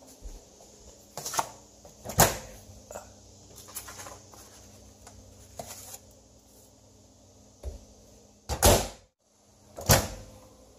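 Sharp clicks and knocks of a microwave oven's door and a paper plate being handled as food is put in to heat, over a faint steady hum. The loudest knocks come about two seconds in and twice near the end.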